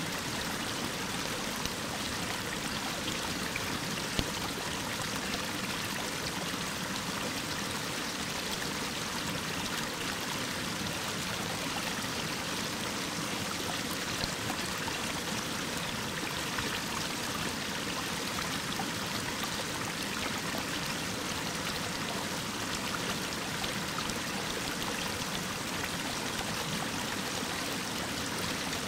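Mountain waterfall spilling down a steep rock face: a steady, unbroken rush of falling water.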